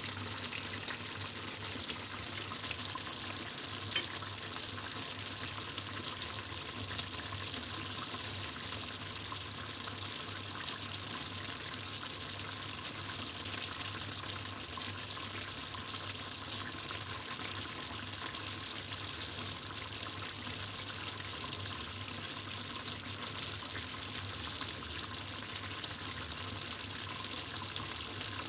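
Chicken mechado stew simmering in a stainless steel pot: a steady bubbling and light sizzling with fine crackles, over a steady low hum. One sharp click about four seconds in.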